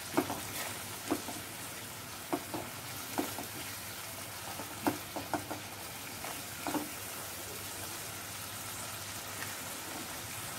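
Onion and cashew paste sizzling steadily in hot oil in a non-stick pan, stirred with a silicone spatula that gives a scattered tap or scrape against the pan every second or two.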